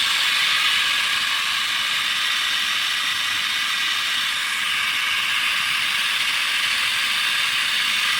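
Corn grits milling machine running steadily: a constant high-pitched hissing noise that does not change in pace or level.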